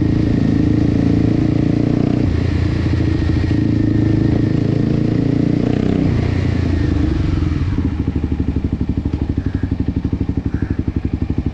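Kawasaki Ninja 250SL single-cylinder engine running loud through an Akrapovic exhaust with the dB killer removed; its note drops and settles into an even, pulsing idle about eight seconds in.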